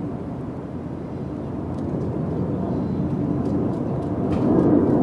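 Steady low engine rumble, swelling a little near the end.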